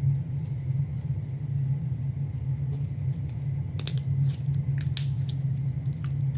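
Steady low rumble, with a few faint sticky clicks and pops about four and five seconds in as slime is squeezed and pulled between the hands.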